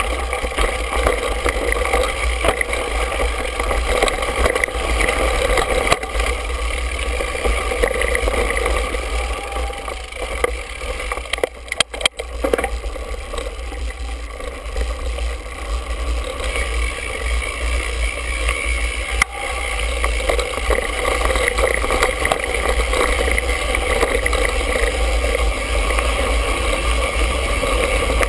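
Mountain bike riding over a dirt singletrack, heard from a handlebar-mounted GoPro: steady wind rush and low rumble with scattered clicks and knocks from the trail. The noise drops briefly about twelve seconds in.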